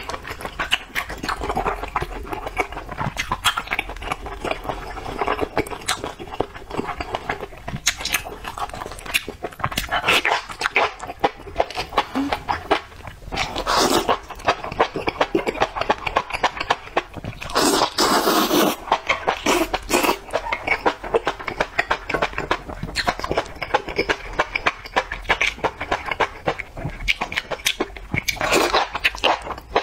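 Close-miked eating of spicy enoki mushrooms in chili-oil broth: continuous wet chewing and smacking, with several long loud slurps, about halfway through one runs longest, and another comes near the end.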